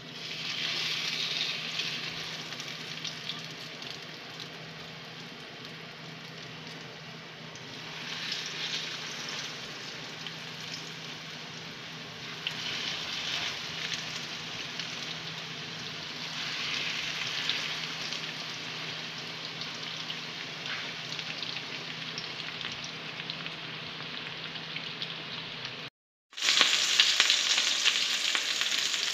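Breaded chicken breast fillets sizzling in hot oil in a frying pan. The sizzle flares up four times as each fillet is laid in, then settles to a steady fizz. After a brief cut near the end it comes back as louder, busier frying as the fillets brown.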